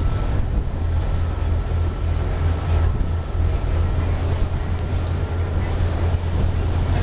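Ferry's engine running steadily under way with a low drone, wind buffeting the microphone and water rushing past the hull over it.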